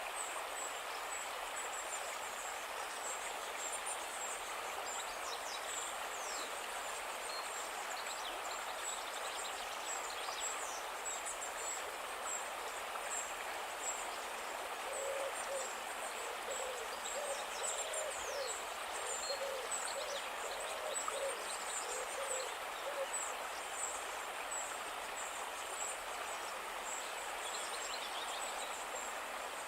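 Calm river flowing steadily, with faint high bird chirps throughout. About halfway through, a bird gives a run of low, repeated hoots lasting several seconds.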